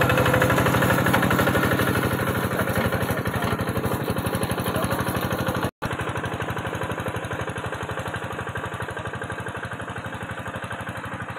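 Engine of a farm machine working in a muddy rice paddy, running steadily with a rapid, even chugging beat. It cuts out abruptly for an instant almost six seconds in, then carries on a little quieter.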